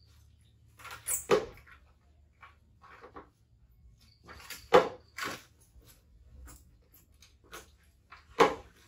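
A few sharp knocks and scuffs from handling, with smaller clicks between them, in a small tiled room. The loudest come about a second in, near the middle and near the end.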